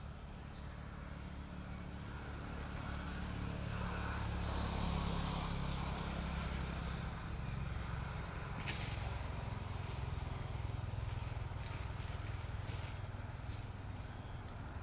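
A motor vehicle's engine running low and steady, growing louder over the first few seconds and then holding.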